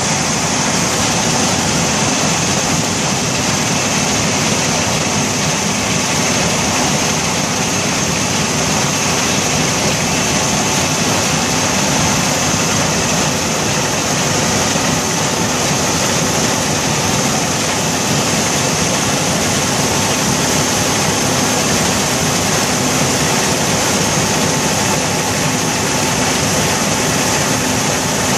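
Combine harvester with a draper header cutting grain sorghum: a loud, steady mechanical din of engine, reel, cutter bar and feed auger, with a steady high whine over it.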